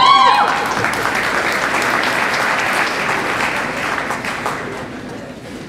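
Audience applauding, opened by a short whooping cheer; the clapping dies away near the end.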